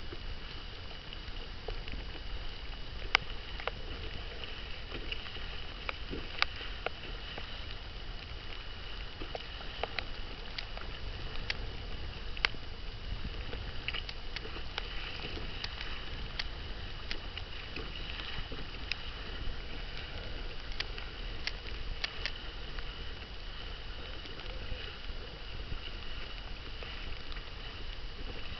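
Water rushing and splashing along the hull of a Hobie tandem kayak sailing at speed, with wind rumbling on the microphone. Sharp ticks and knocks come irregularly throughout, and a faint steady high tone runs underneath.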